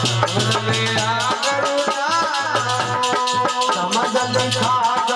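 Devotional bhajan music: a rattling percussion instrument keeps a fast, steady beat under a melody line that bends up and down, with low held notes recurring every second or so.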